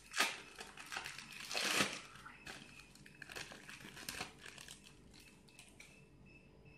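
Plastic wrapper of a cheese slice crinkling as it is peeled off. There are two louder crinkles in the first two seconds, then lighter rustles that die away about halfway through.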